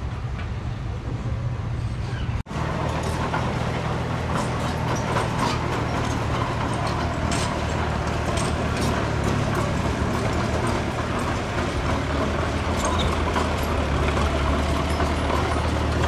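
Diesel engine of heavy earthmoving machinery running steadily, with irregular clanks and rattles over it. The sound drops out for a moment about two and a half seconds in.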